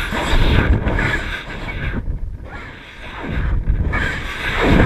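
Wind rushing over a GoPro sealed inside a bowling ball in flight, a loud rushing that swells and fades as the ball tumbles through the air.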